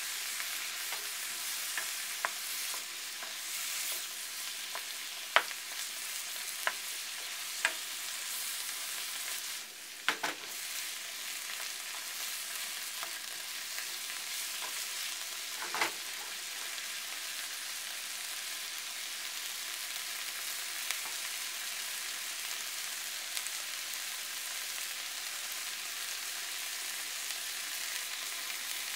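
Sliced pork and onion sizzling steadily in a frying pan while being stirred with a wooden spatula, which knocks sharply against the pan several times in the first half.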